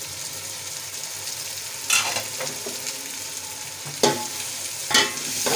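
Chana dal frying and sizzling in oil in a metal pot, stirred with a spoon that scrapes and knocks against the pot a few times, about two, four and five seconds in.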